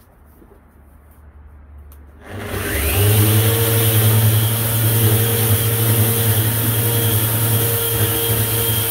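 An electric orbital sander starts up about two seconds in with a rising whine, then runs steadily as it sands a wood and epoxy table top.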